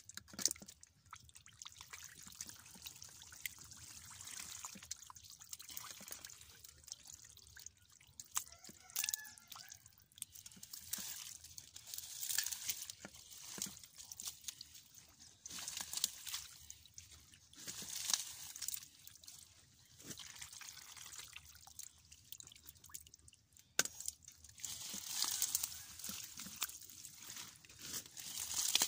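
Hands scooping and splashing in shallow muddy water, with water dripping and pouring off as handfuls of mud and weeds are lifted and thrown aside. It comes in irregular bursts with sharp little splashes between them.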